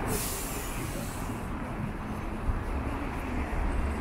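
Busy city street traffic: a steady rumble of passing cars, with a burst of hiss in the first second or so.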